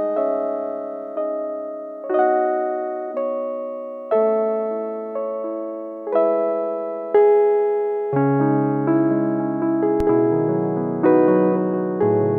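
Keyboard playing slow, gentle piano-toned chords. A new chord is struck about once a second and left to ring and fade, and low bass notes join about eight seconds in.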